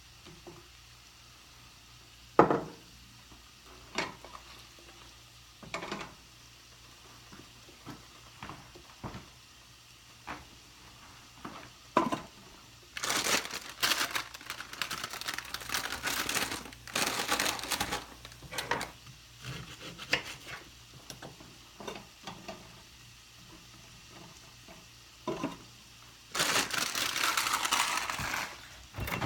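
Cooking in a pan: a utensil knocks against the pan several times, and two longer stretches of noisy, sizzling hiss come midway and near the end.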